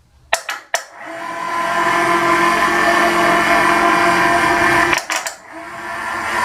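Electric hoist motor running with a steady whine while it lifts a large lathe faceplate on its hook and chain. It starts after two sharp clicks about half a second in, stops briefly with clicks about five seconds in, then runs again.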